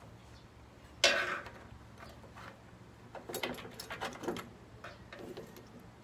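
Small clicks and rattles of wiring and connectors being handled inside an opened microwave oven's metal chassis, with one sharper clatter about a second in.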